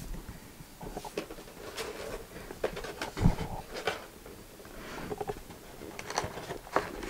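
Clear plastic blister tray holding headphones crackling and clicking as it is handled and bent. There is a dull thump about three seconds in.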